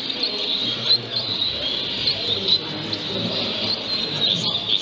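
Many caged zebra and Bengalese finches chirping together, a dense stream of short high calls overlapping one another, over a low murmur of voices.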